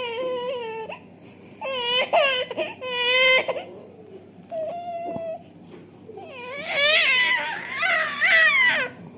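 A five-month-old baby fussing and crying in a string of short, high-pitched wails with brief pauses between them, about five cries in all.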